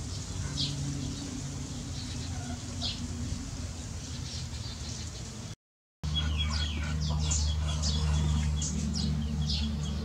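Small songbirds chirping: a fledgling gives a couple of short high calls. After a brief dropout, a group of small birds chirps busily. A steady low hum runs underneath throughout.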